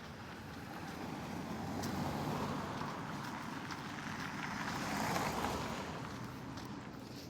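Road traffic: passing vehicles, the noise swelling up and fading twice, about two and five seconds in.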